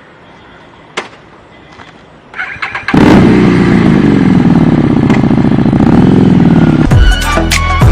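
A click about a second in, then a motorcycle engine cranks and catches about three seconds in. It runs loud, its pitch rising and falling as the throttle is blipped, until music cuts in near the end.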